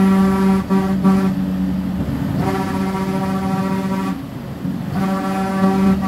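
Truck horn held in long, steady blasts, heard from inside the cab, with a motor rumble underneath. The horn breaks off twice, about a second in and again about four seconds in.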